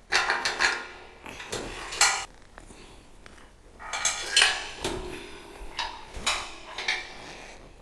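A steel welding table under fabrication being turned over by hand, giving a series of metal clanks and scrapes, some of which ring briefly.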